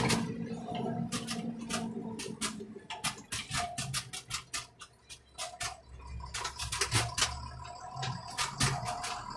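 Tractor cab and front loader rattling and knocking over a bumpy lane: many irregular sharp clicks, several a second, over the engine's low running drone.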